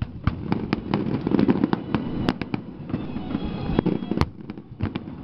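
Fireworks display: a rapid run of sharp cracks and bangs, densest about one to two seconds in, with a few single louder bangs later, over a continuous low rumble.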